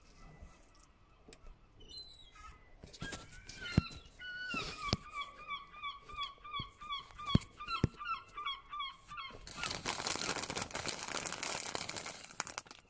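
Cartoon sound effects from a handheld device's small speaker: a quick run of short, squeaky honking notes, about three a second, lasting several seconds. These are followed by a few seconds of loud rushing hiss, with a few sharp clicks along the way.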